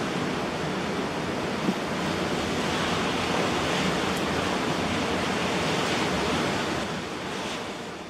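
High wind gusting to around 50 mph, a steady rushing roar through trees, swelling into a stronger gust a few seconds in and fading out near the end.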